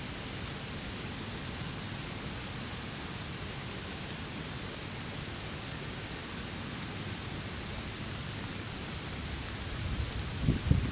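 Rain falling steadily, an even hiss with no break; a few low rumbles come in near the end.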